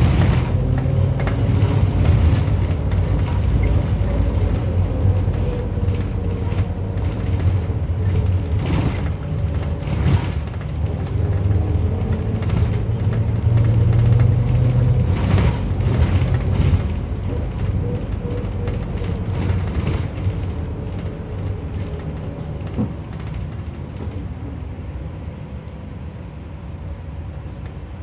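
Minibus engine running and cabin fittings rattling and creaking, heard from inside the moving minibus. It gets quieter over the last few seconds as the minibus slows.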